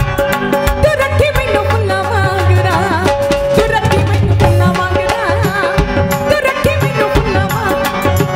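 Two women singing a Punjabi song live into handheld microphones, with ornamented, wavering vocal lines over a band with steady drum strokes and a sustained held note.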